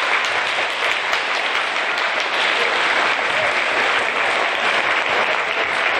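Audience of schoolchildren applauding: many hands clapping in a steady, even clatter.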